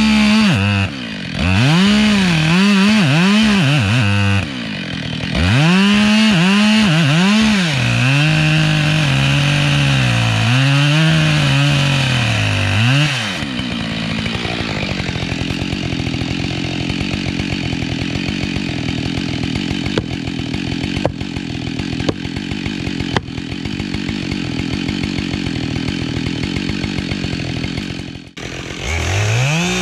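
Husqvarna 572 XP two-stroke chainsaw revved up and down repeatedly, then running at a lower steady speed with a few sharp clicks, and revving up again at the very end.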